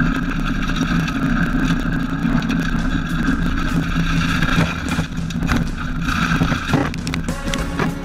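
Rally car's engine running hard at high, steady revs, heard from inside the cabin, with road noise and frequent sharp knocks from the gravel stage. The engine note drops away shortly before the end.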